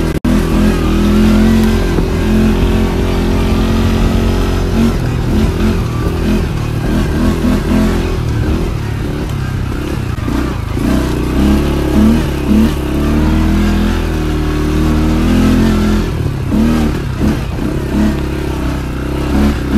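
ATV engine running while riding, its pitch and loudness rising and falling with the throttle.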